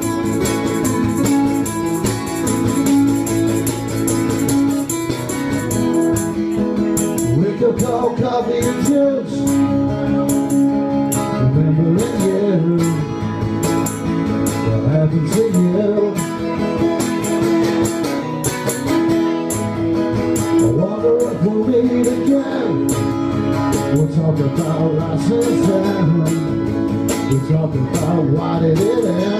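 Two acoustic guitars strumming and picking a song together, with a man singing over them.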